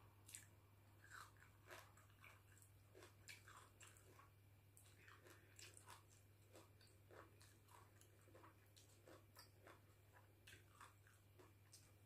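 Faint, irregular chewing of a person eating raw leafy greens and sticky rice, with small wet mouth clicks and crunches about one to two a second.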